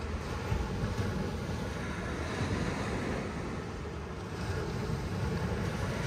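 Sea waves washing onto a sandy beach: a steady rush of surf with a deep rumble underneath, growing a little louder near the end.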